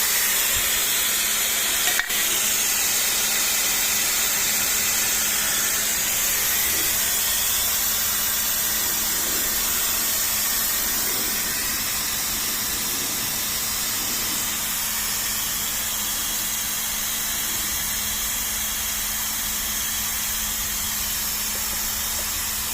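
Steady hissing noise with a faint low hum underneath, and a single sharp click about two seconds in; the hiss eases slightly about halfway through.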